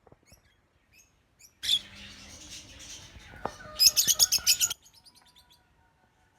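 Lovebirds chirping: a few faint chirps, then loud shrill chatter starting about a second and a half in, rising to a fast run of high chirps near the middle before fading to scattered calls.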